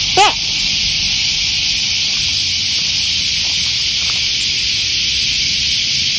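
Steady high-pitched hiss, with one brief high rising-and-falling whine just after the start.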